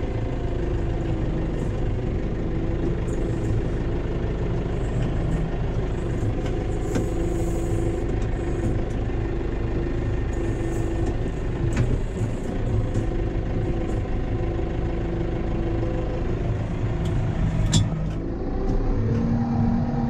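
Case Farmall 75 C tractor's diesel engine running steadily, heard from inside the cab, with a steady whine over the engine and two sharp knocks, one near the middle and one near the end.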